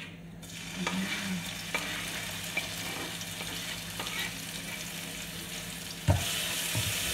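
Ground spice paste sizzling in hot oil in a frying pan, a steady hiss that gets louder about six seconds in as it is stirred with a spatula. A few light clicks of utensils come through the hiss.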